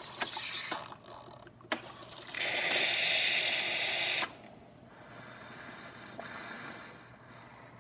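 Gaggia Accademia espresso machine running its cappuccino cycle: a few mechanical clicks, then a loud hiss lasting about two seconds that cuts off suddenly, leaving a fainter steady running noise.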